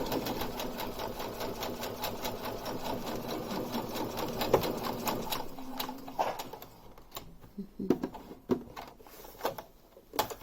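Brother electric sewing machine running a line of running stitch, its needle clicking in a fast, even rhythm. It stops about six and a half seconds in, and a few separate clicks and knocks follow.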